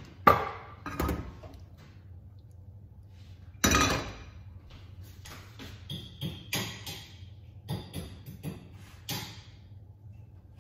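Kitchen clatter of knocks and clinks as a nonstick frying pan is shifted on a gas range's metal grate. The sharpest knock comes just after the start, with a longer clatter about four seconds in, then a run of lighter clicks and a faint ring.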